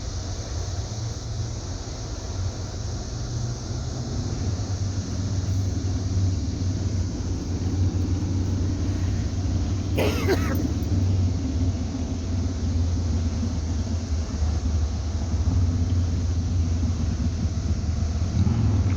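Low steady rumble of the Crystal Taylor's engines as the boat moves into the lock, growing slightly louder about four seconds in. A single cough about ten seconds in.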